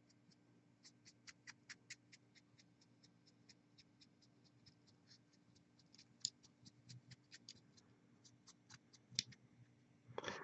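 Faint, quick small clicks and taps, irregular at a few a second, over a low steady hum, with a louder brief rustle near the end.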